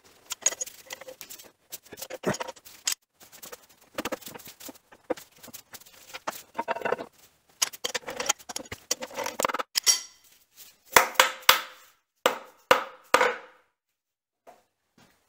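Irregular metallic clinks and knocks as parts and tools are handled against a milling machine's metal body, with a cluster of louder, ringing knocks about three-quarters of the way through. Fabric rubs close to the microphone midway.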